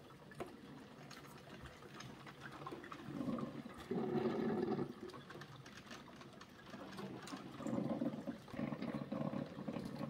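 Drip coffee makers gurgling as they near the end of their brew cycle, hot water and steam pushing up through the heating tubes. The gurgling comes in uneven swells, louder about three seconds in and again near the end.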